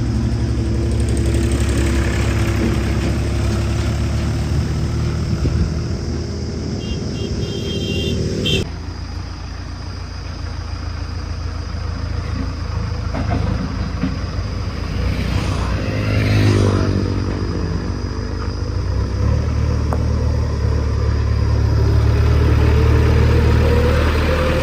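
JCB backhoe loader's diesel engine running under work, its pitch swelling and rising as it revs, most clearly near the end. A few short high beeps sound about seven to eight seconds in, and the engine sound changes abruptly just after.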